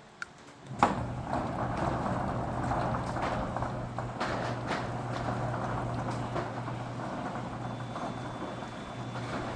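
Garage door opener's electric motor starting with a sharp click about a second in, then running with a steady hum and a rattling drive as it works two roll-up doors through a shared bar.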